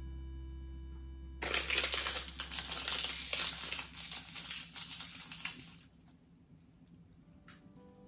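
Dry seasoned nori torn and crumbled by hand, a crisp crackling that starts about a second and a half in and stops near six seconds.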